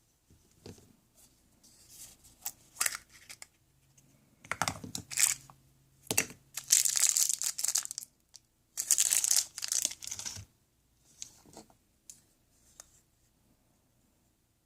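Packaging being handled and torn open: crackly rustles and small clicks, with two longer, louder tearing sounds about six and nine seconds in.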